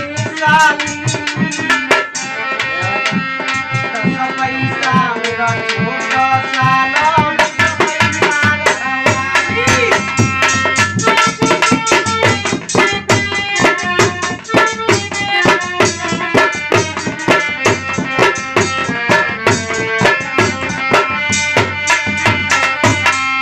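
Instrumental Indian folk music: a harmonium plays a melody in held reed tones over a steady, driving dholak drum rhythm.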